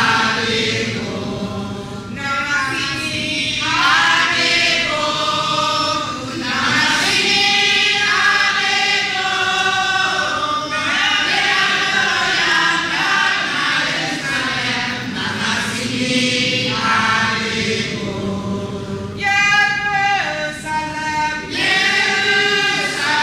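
A group of people singing together in chorus, in long held phrases that rise and fall in pitch.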